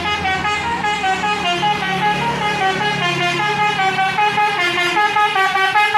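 A bus's "telolet basuri" musical air horn playing a quick melody, its notes stepping up and down several times a second. A steady low hum sits beneath it.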